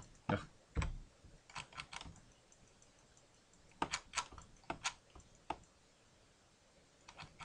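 Computer keyboard keys and mouse buttons clicking faintly in scattered short runs of a few taps, with a quiet gap a little before the end.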